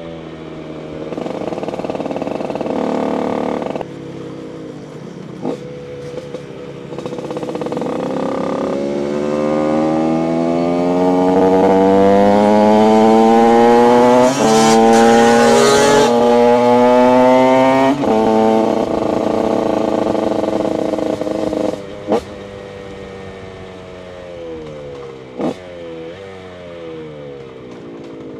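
TM SMR 125 supermoto's two-stroke single with an HGS exhaust, under way. The revs climb through a long pull that is loudest in the middle, with a couple of sudden steps. Then the throttle closes and the engine winds down as the bike slows, with a few sharp clicks along the way.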